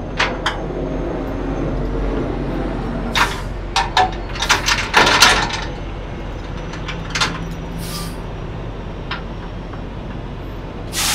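Steel tie-down chain clanking against an aluminum flatbed trailer's rail as it is rerouted: a series of sharp metallic knocks, several bunched together around the middle. A steady vehicle hum runs underneath.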